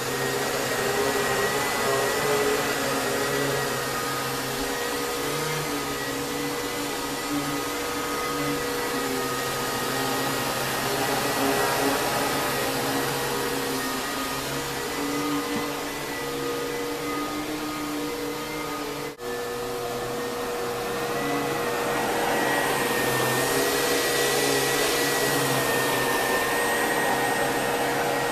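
Kenmore Progressive canister vacuum cleaner with a Lamb electric motor running steadily, a constant whine over rushing air, with a momentary break about two-thirds of the way through.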